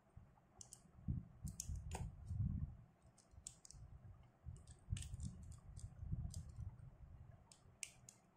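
Small precision screwdriver clicking and scraping in the screws of a spinning reel's body as it is unscrewed, with the reel being turned in the hands. Faint, irregular small clicks throughout, with light handling rumble.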